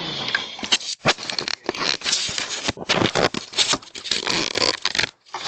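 Rustling and scraping with many sharp clicks and knocks, coming in uneven bursts.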